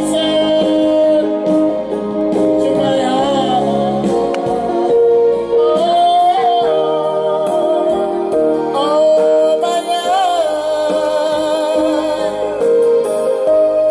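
A singer's amplified voice holding long, wavering notes over an instrumental backing track played through a sound system.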